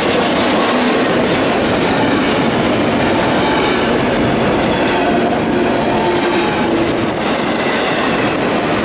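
Passenger train rolling past close by: a steady, loud rumble of wheels on rail with clickety-clack over the rail joints.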